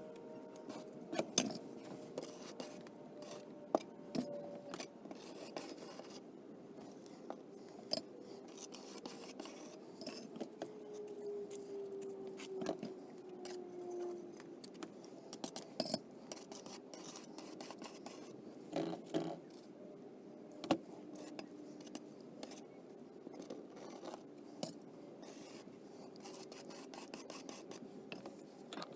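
A plastic spreader scraping and smoothing wet ready-mix filler on a board, with scattered light clicks and taps throughout.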